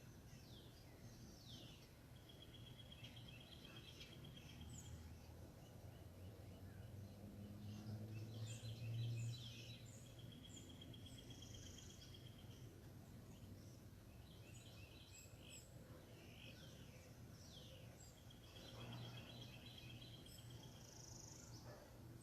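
Faint birdsong from several birds: short falling calls throughout and a rapid trill heard three times, each lasting about a second and a half. A low rumble swells and fades about nine seconds in.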